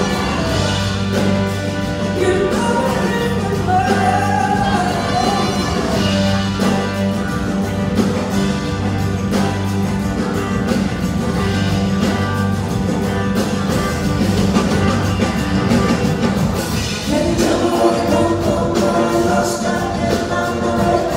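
Live band performance: a woman's lead vocal over electric guitar, bass and drums. About three-quarters of the way through, a group of backing singers comes in with sustained harmonies.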